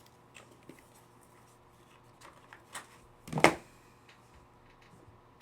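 Trading cards and pack wrappers being handled: light scattered clicks and rustles, with one louder short knock about three and a half seconds in.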